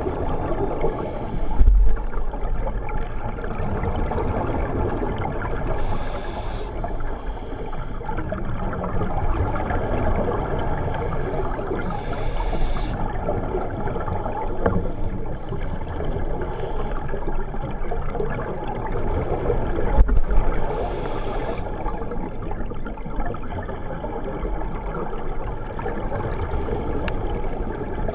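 Underwater sound picked up through a camera housing on a scuba dive: a steady rumbling hiss, with divers' regulator exhaust bubbles bursting out every few seconds. Two low thumps stand out, about two seconds in and again about twenty seconds in.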